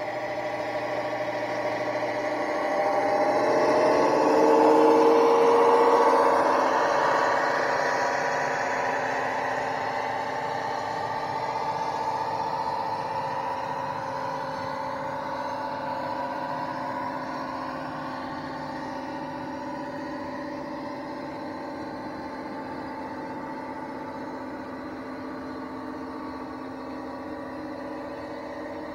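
Sound-fitted OO gauge model of a BR Class 55 Deltic diesel locomotive, its speaker playing a Napier Deltic engine sound. It is loudest a few seconds in as the locomotive passes, then slowly fades as the train draws away.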